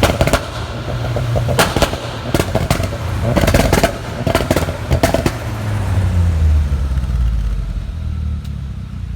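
2004 Audi A4 engine held on its two-step launch-control rev limiter, the exhaust popping and banging in several rapid bursts, very loud. About five seconds in the bangs stop and the revs drop back toward idle.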